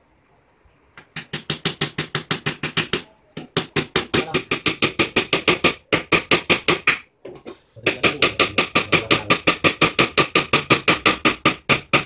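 Rapid light hammer blows, several a second, driving finishing nails into a plywood bed frame, in three runs with short pauses between.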